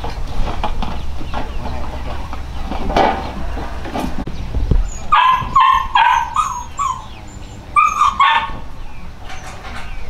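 A dog yipping: a quick run of about five short, high barks about halfway through, then two more shortly after.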